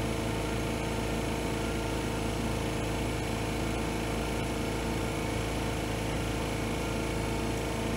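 Steady mechanical hum with several held tones at an even level, like a running fan or air-conditioning unit; no knocks or taps stand out.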